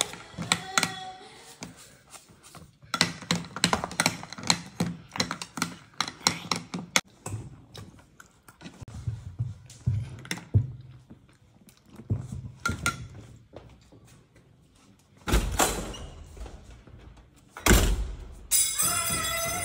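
Metal spoon clicking and scraping against a ceramic bowl in quick irregular taps, then two heavy thuds, about two and a half seconds apart, in the last few seconds.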